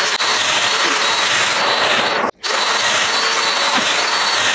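Festool Domino joiner running with its hooked-up dust extractor: a loud, steady rushing hiss with a faint high whine, cutting out for an instant a little past halfway, then running on.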